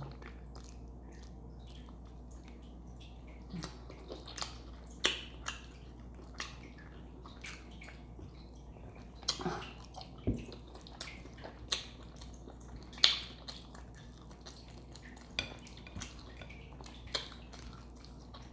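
Messy eating of a seafood boil: wet chewing, lip smacks and squelches of sauce-covered food, heard as irregular sharp clicks and smacks over a faint steady low hum.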